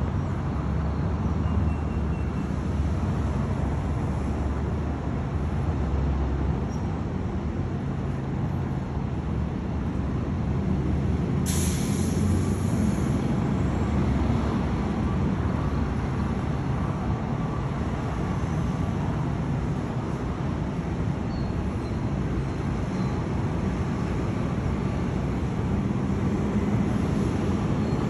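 Steady low rumble of a large cruise ship's machinery while it docks, with a faint steady hum under it. A short hiss comes about eleven and a half seconds in.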